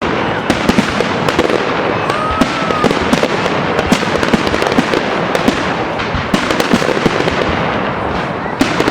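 Fireworks finale: a dense, unbroken barrage of bangs and crackling bursts, many reports a second.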